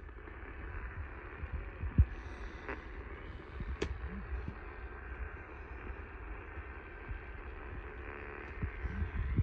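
Hiss from a radio recording, cut off sharply above the mid-treble, with an irregular low thumping underneath and a couple of sharp clicks, about two seconds in and again near four seconds.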